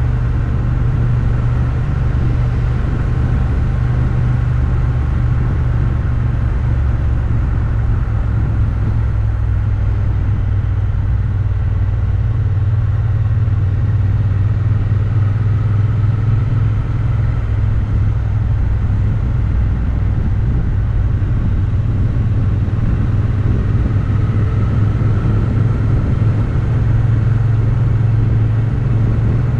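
Motorcycle engine running steadily while riding along at an even pace, its note holding fairly constant, with low road rumble underneath.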